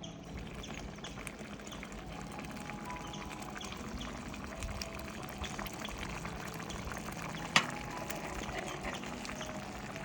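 Rice-and-jaggery payasam bubbling and popping softly as it simmers and thickens in the pan. A single sharp click comes about seven and a half seconds in.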